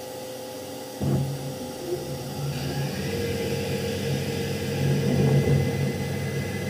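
Mazak CNC lathe whose spindle starts abruptly about a second in, then runs steadily with the turning tool working the end of the bar held in the chuck. The running machine gives a low steady hum with a thin whine above it.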